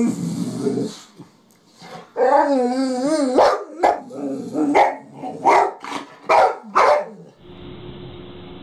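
Boxer dog vocalizing: a drawn-out, wavering howl-like groan, then a string of about six short barks. Near the end the barking stops and a steady low hum takes over.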